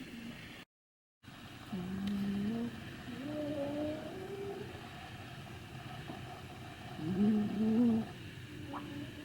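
Maltese dogs snoring in their sleep: a few drawn-out, pitched snores about a second each, the loudest near the end. The sound drops out completely for about half a second near the start.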